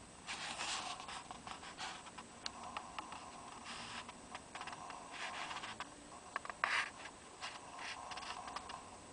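Irregular scratchy rubbing and rustling with scattered sharp clicks, the loudest clicks coming about two-thirds of the way in: handling noise from the hand-held camera being moved around.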